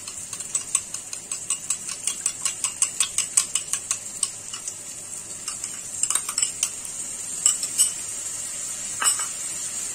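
Oil sizzling steadily in a wok of frying chicken, while a utensil beats yogurt in a ceramic bowl with quick clicks, about four a second, for the first four seconds. A few scattered clinks and scrapes follow as the whisked yogurt is added to the pan.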